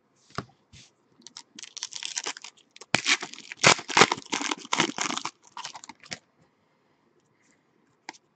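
Foil wrapper of a Panini Elite basketball card pack being torn open and crinkled for about four seconds, loudest in the middle. A few light clicks of trading cards being handled come before and after.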